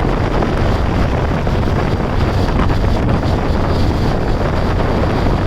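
Motorcycle being ridden at a steady speed, its engine running under heavy wind noise on the microphone.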